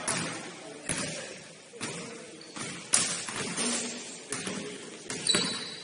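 Basketball bouncing on a gym floor about once a second, each thud echoing in the hall, with a brief high squeak near the end.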